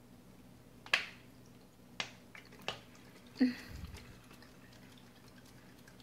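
About four sharp, drip-like clicks in the first three and a half seconds, the first the loudest, from water dripping inside a pair of plastic bottles joined neck to neck. Faint room tone between them.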